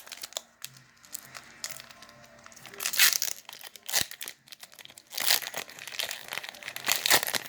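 Foil booster-pack wrapper of a Pokémon trading card pack crinkling and tearing open in several bouts, loudest about three seconds in and again near the end, with soft music underneath.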